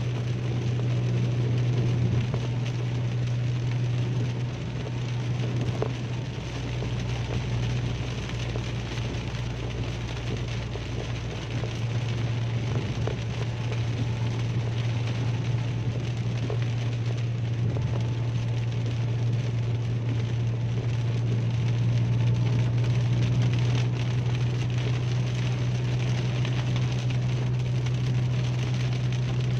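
Heavy rain on a moving car, heard from inside the cabin: a steady hiss of rain and wet road over the constant low drone of the car driving.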